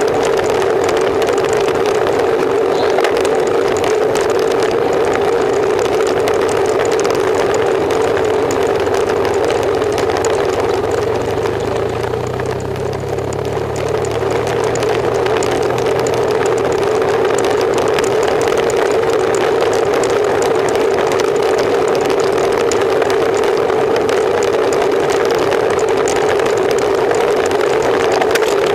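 Steady rushing wind and road noise on the microphone of a bicycle-mounted camera, with a constant droning tone. For a few seconds about halfway through, a motorcycle engine runs at low revs close alongside, then fades.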